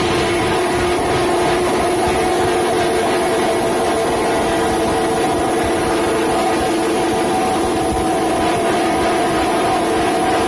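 Loud, steady din of drums beating under a sustained droning tone held at an even pitch.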